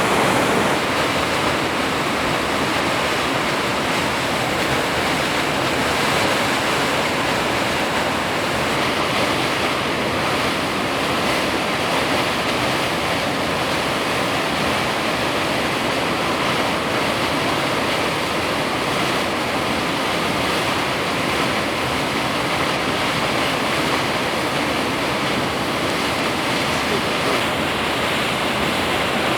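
Suryakund waterfall, the Bhagirathi river plunging into a rock gorge: a steady, unbroken roar of heavy falling water.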